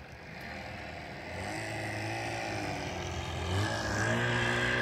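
An engine running steadily, its note rising and getting louder about three and a half seconds in.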